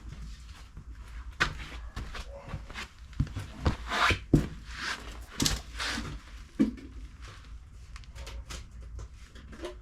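Handling noises: a run of sharp knocks and clicks with some rustling, thickest in the middle, over a faint low hum.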